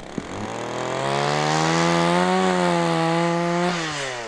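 Chainsaw revved up from idle, held at high speed for a couple of seconds, then let back down toward idle near the end.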